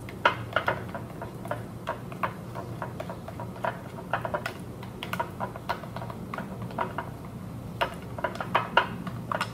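Spoon stirring a thick glue-based slime in a clear bowl: irregular clicks and taps of the spoon against the bowl as red food colouring is worked in.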